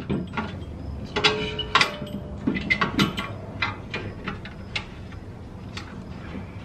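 Irregular metal clicks and clinks of suspension parts and hardware being handled and fitted by hand under a car, frequent for the first few seconds and sparser near the end.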